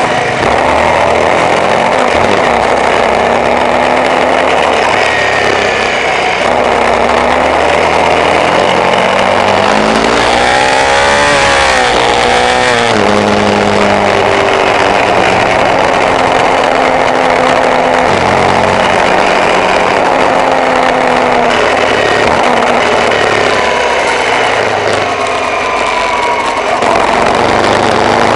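Off-road vehicle engine running while driving, its pitch rising and falling with speed. About ten seconds in the revs climb steeply, then drop sharply, as at a gear change.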